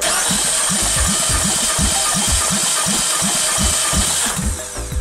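Mazda CX-5 2.0-litre 16-valve four-cylinder engine being cranked over on its starter for a compression test on cylinder one. It makes a rhythmic chugging of about four compression pulses a second and stops about four seconds in, by which point the gauge has built to about 11.5 kg/cm².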